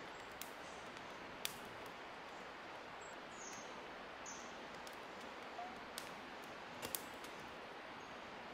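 Small wood fire crackling in a compact twig-burning camp stove: a handful of sharp pops over a steady outdoor hiss, the loudest about a second and a half in and a close pair near the end.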